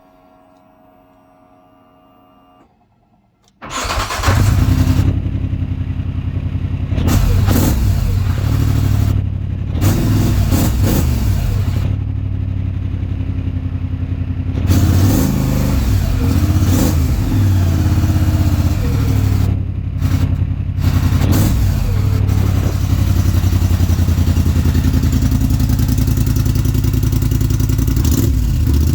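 Polaris Sportsman 850 ATV's twin-cylinder engine, breathing through a Big Gun EXO stainless exhaust. After a faint steady hum, the engine starts about four seconds in and is revved up and down several times, then settles to a steady run.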